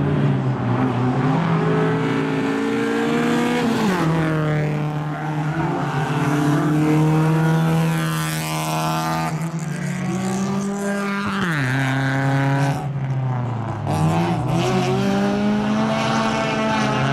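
Rallycross cars racing, engines held at high revs, several engine notes overlapping. The pitch drops sharply at about four, eleven and a half and fourteen seconds, then climbs again.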